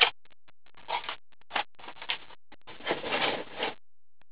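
Irregular rustling and scuffing noises in a handful of separate bursts, the longest lasting about a second near the end.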